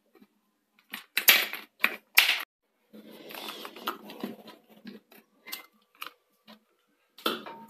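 Plastic clamp latches on a mixer-grinder jar's clear lid being snapped open, a series of sharp clicks, loudest in the first half, with handling noise as the lid comes off the steel jar.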